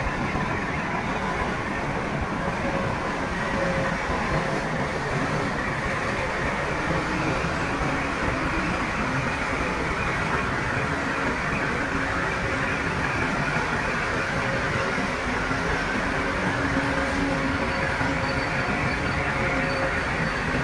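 Heavy earthmoving machinery running steadily: a diesel engine under a dense, even mechanical clatter, as of a crawler bulldozer working.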